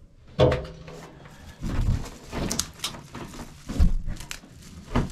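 Knocks and clanks of a small homemade wood stove's metal door and firebox, with rustling and snapping of dry twigs as kindling is pushed in. A sharp metal clank rings briefly about half a second in, and several more knocks follow.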